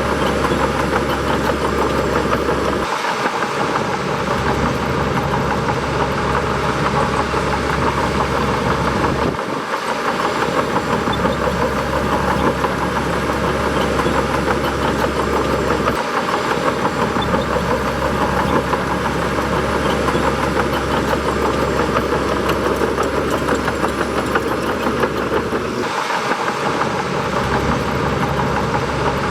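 Bulldozer's heavy diesel engine running steadily as it works, with four brief dips in its low rumble.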